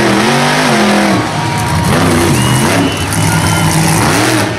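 Monster truck engine revving, its pitch rising and falling several times as the throttle is blipped on and off.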